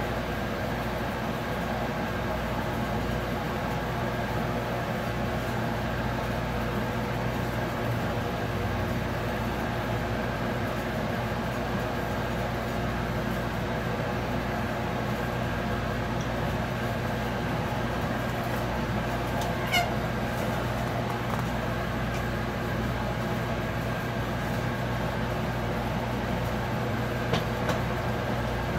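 A boat's engine machinery idling: a steady drone with several held hum tones, with a brief faint squeak about twenty seconds in.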